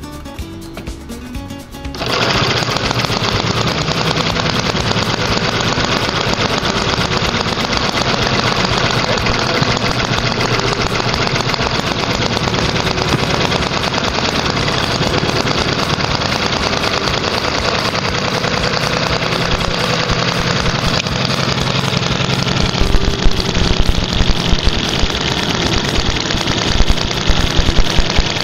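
A homemade single-cylinder four-stroke OHV gasoline model engine starts about two seconds in and then runs fast and steady with a rapid, loud chatter. It grows louder and more uneven in the last several seconds.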